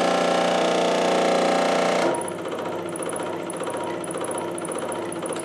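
Scroll saw running, its reciprocating blade cutting through a thin strip of wood with a loud steady buzz. About two seconds in the sound drops to a quieter, lighter rattling buzz as the workpiece comes off the blade and the saw runs free.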